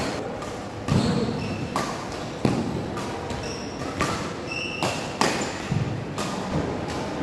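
Badminton rackets striking a shuttlecock in a fast doubles rally, a string of sharp hits about one a second, with short high squeaks of players' shoes on the court mat between them.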